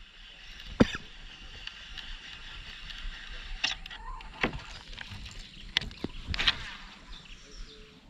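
Baitcasting reel being wound in during a lure retrieve, a steady whir, broken by several sharp knocks, the loudest about a second in.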